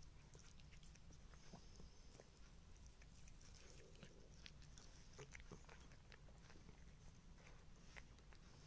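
Kitten licking and chewing a small morsel from a person's palm: faint, irregular little wet clicks and smacks.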